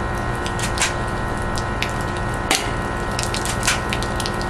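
Air conditioner unit running with a steady hum. A few light clicks cut through it, with one sharper click about two and a half seconds in.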